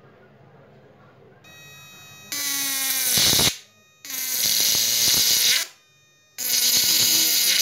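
High-voltage arc between the output wires of a homemade 12 V to 1200 V electric fishing inverter: three loud buzzing arcs, each about a second and a half long, as the wires are brought together and pulled apart, with a fainter buzz leading into the first.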